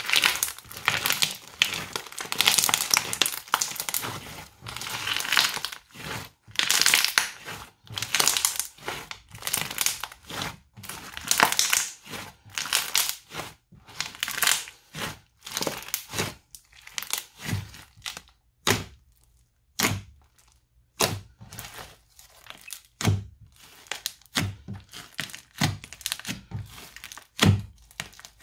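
Crunchy slime being kneaded and squeezed by hand, crackling densely. About halfway through it changes to separate sharp pops with a low thud, roughly one a second, as fingers press into folds of the slime and burst trapped air.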